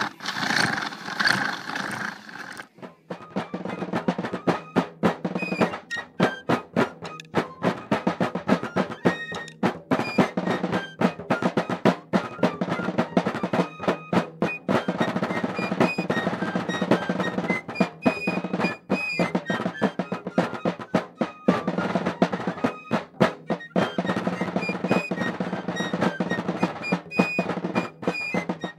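Bubble wrap crackling and popping as a belt is dragged through the feed rollers for the first couple of seconds, then background music with a fast, busy drum beat over a steady bass note.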